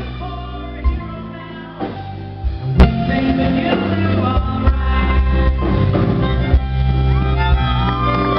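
Live band music with accordion, guitar and drums, with a single sharp drum hit about three seconds in. Near the end, long bending lead notes come in.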